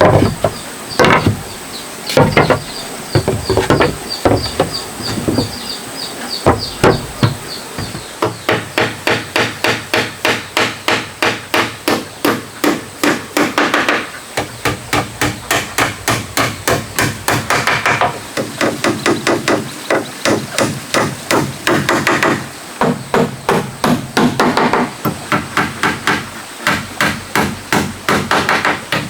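Hammer driving nails into wood: a few scattered blows at first, then steady runs of quick strikes, about two or three a second, broken by short pauses.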